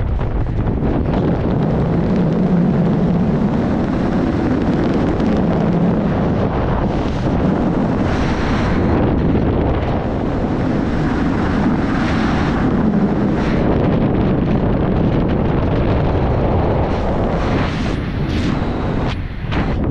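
Caterpillar D2 crawler tractor running steadily, its engine note shifting in strength, with heavy wind noise on the microphone.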